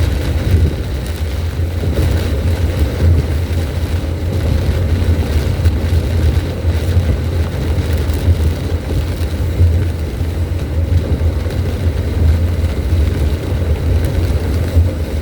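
Steady low road and wind rumble of a car at about 40 mph, heard from inside the cabin while it drives through high wind and heavy rain.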